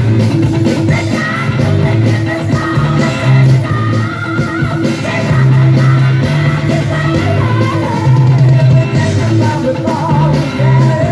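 A song with singing and a strong, pulsing bass line, played back over B&W 2002 bookshelf speakers from a Nakamichi BX-2 cassette deck through a Marantz PM-500 amplifier.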